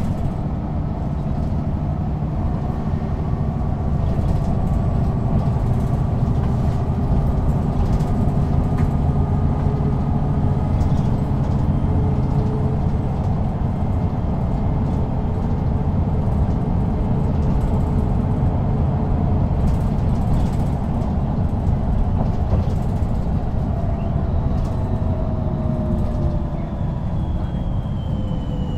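Interior ride sound of a 2007 Mercedes-Benz O530 G II articulated diesel bus with Voith automatic gearbox under way: a steady, loud engine and road rumble with faint drivetrain tones slowly rising and falling. Near the end a whine falls in pitch.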